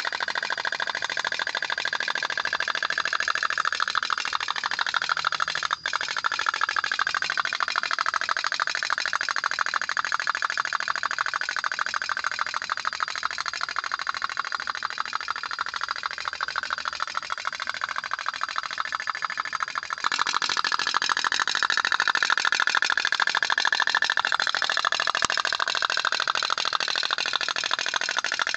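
Toy pop-pop (otok-otok) steam boat running: a steady, rapid putt-putt from its little steam engine. The sound breaks off abruptly about six seconds in and gets louder about twenty seconds in.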